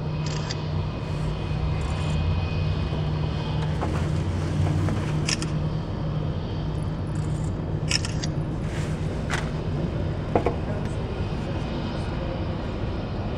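Steady engine rumble of an Airbus A320 airliner taxiing at low power, with a few sharp clicks in the second half.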